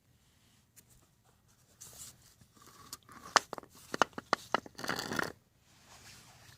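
Handling noise: rustling with a quick run of sharp clicks and knocks about halfway through, then a short burst of rustling.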